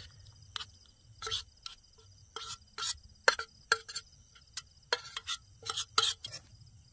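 Metal spoon scraping and knocking food out of a small camping pan onto a steel plate: a quick, irregular series of short metallic clinks and scrapes. Crickets trill steadily in the background.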